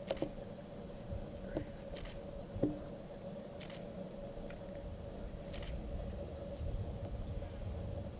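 Outdoor dusk ambience: a steady high-pitched chirring over a low hum and rumble, with a few faint clicks in the first three seconds.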